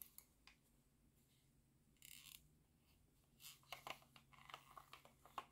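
Gloved hands handling a plastic trackball mouse as it is picked up and turned over: faint brushing, with a few light clicks and taps of the plastic shell. There is a short brush of noise about two seconds in and a cluster of small clicks and rustles in the second half.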